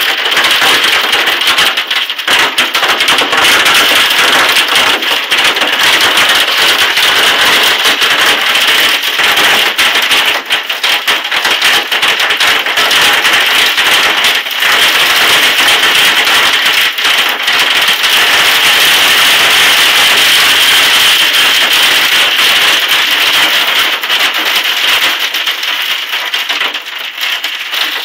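Hail pelting down hard: a loud, dense clatter of countless small impacts, easing slightly near the end.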